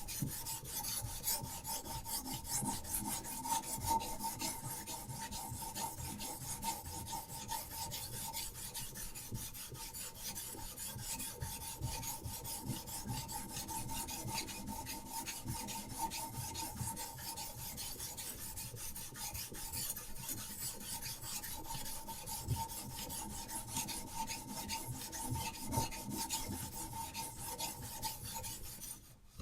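Diamond sharpening stone on a Hapstone RS guided sharpener stroked rapidly and continuously along a steel knife blade: a steady rasping scrape with a faint high steady tone underneath. It stops abruptly at the very end.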